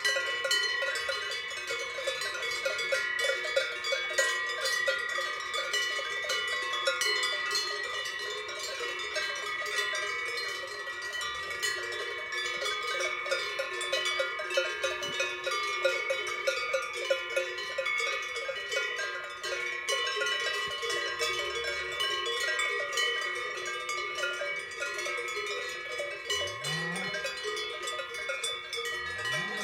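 Many cowbells clanking together in a dense, continuous jangle of several pitches, struck irregularly and rapidly.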